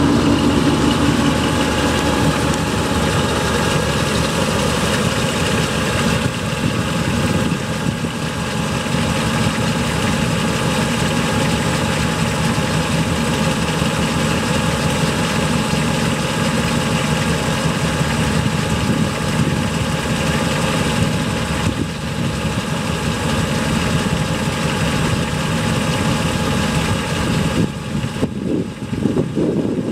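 Mildly built Chevrolet 283 small-block V8 idling steadily.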